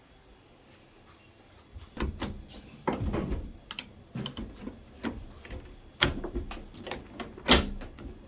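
Irregular knocks, clicks and clatter of hard parts being handled, starting about two seconds in, with the loudest knock near the end.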